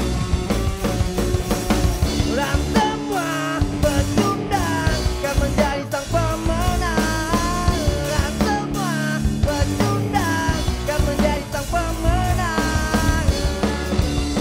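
Punk rock band playing live: drums, bass guitar and electric guitars with a steady driving beat, under a melody line that slides up and down in pitch.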